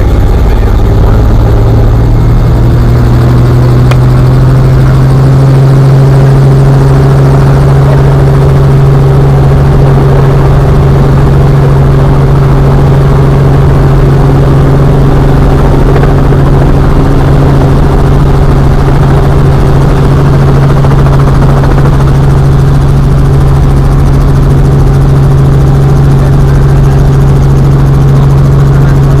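Helicopter running with a loud, steady drone from its rotor and engine.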